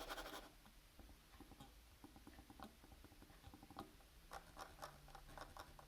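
Faint, soft taps of the wireless mouse's buttons being clicked repeatedly, with almost no click sound; a quicker run of taps comes about four seconds in.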